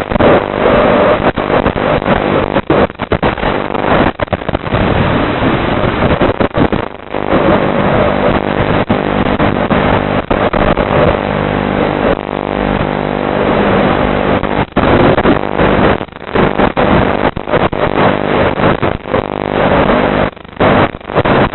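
Racing quadcopter's electric motors and propellers buzzing hard, a steady whine over rushing air noise, cut by frequent brief dropouts.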